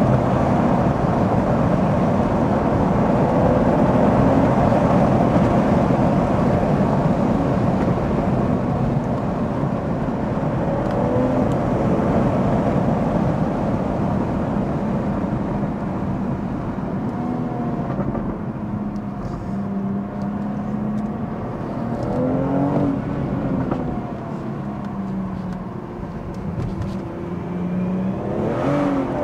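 BMW M240i's turbocharged B58 straight-six with a Scorpion resonator/OPF-delete exhaust, heard from inside the cabin, pulling hard under acceleration with heavy road noise. About halfway through it eases off, and the engine note then rises and falls as the revs change, growing louder again in the last seconds.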